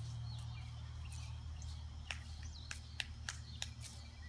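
A bird giving about five short, sharp chirps, roughly half a second apart, in the second half, over a steady low hum.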